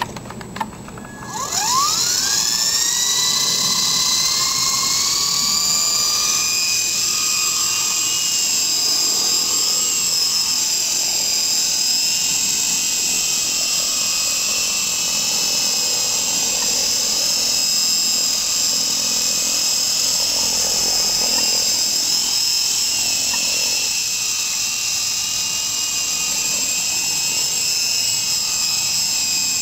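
Hummingbird FP fixed-pitch micro RC helicopter spooling up: a whine from its electric motor and rotor that starts about a second and a half in and rises in pitch. It then holds a steady high whine at running speed on main rotor blades repaired with glue.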